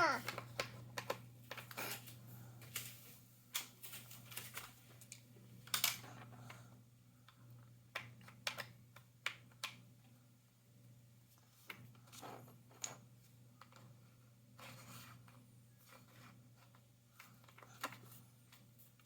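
Jigsaw puzzle pieces being handled and fitted together: scattered light clicks and taps at irregular intervals, over a faint steady low hum.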